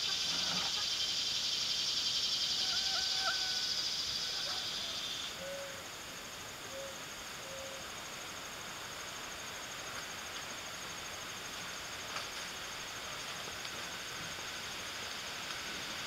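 Insects droning steadily in summer woodland; the loudest, high-pitched part of the drone cuts off suddenly about five seconds in, leaving a thinner, finely pulsing trill. A few short bird calls sound in the first few seconds, followed by three short, low notes.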